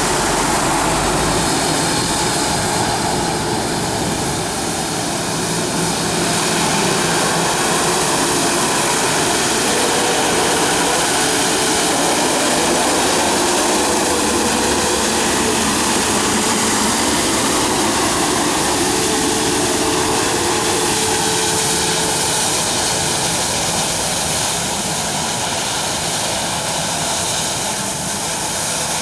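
Road sweeping machine working: its engine and sweeping gear make a loud, steady rushing noise that hardly changes throughout.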